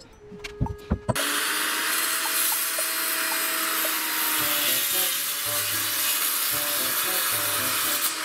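A power tool working a wooden board: about seven seconds of loud, steady noise that starts abruptly about a second in and cuts off just before the end, with light background music underneath.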